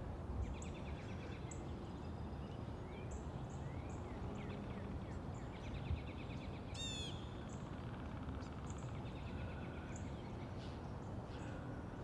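Several small birds chirping and trilling over a low, steady rumble of wind. A quick run of high notes dropping in pitch stands out about seven seconds in.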